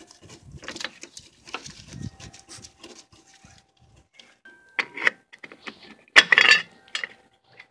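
Metal clinks, knocks and scrapes of hand tools and mount hardware as a new engine mount is worked into place under the car. The loudest clatter comes about five seconds in and again about six seconds in.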